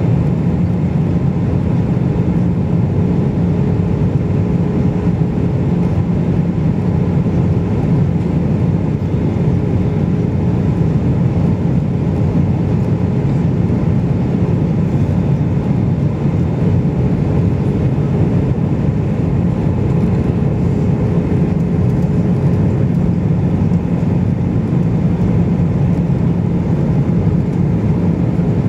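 Cabin noise of an Airbus airliner in flight, heard from a window seat over the wing: the steady drone of the turbofan engine and rushing air, with a low hum running through it.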